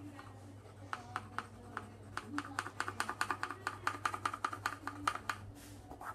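Coloured pencil scribbling back and forth on paper, colouring in a large area with quick, even strokes. A few separate strokes at first, then a fast regular run of several a second that stops shortly before the end.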